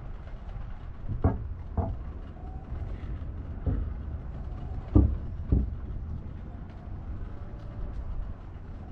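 Outdoor harbourside ambience: wind buffeting the microphone with a steady low rumble, broken by a few short, sharp knocks, the loudest pair about halfway through.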